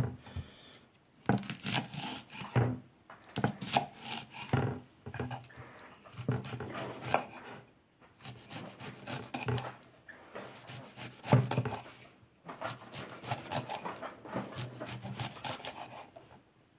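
Chef's knife chopping a leek finely on an end-grain wooden board: runs of quick knife strikes against the wood, broken by short pauses.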